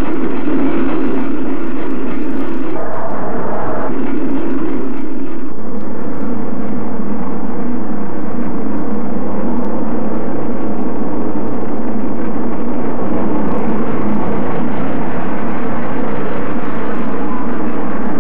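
Steam train running at speed: a loud, steady rumble of wheels and engine. It is muffled and dull, as on an old film soundtrack.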